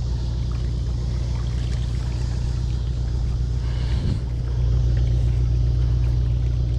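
Steady low engine drone of a large ship on the river, getting a little louder about four and a half seconds in.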